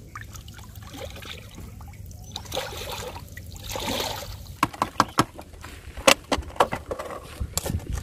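Water trickling and dripping from plastic-bottle shrimp traps lifted out of a river, with a quick run of sharp drips and splashes in the second half, over a steady low rumble.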